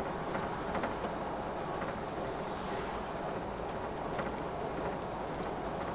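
Steady engine and road noise of a vehicle being driven, with a few faint ticks.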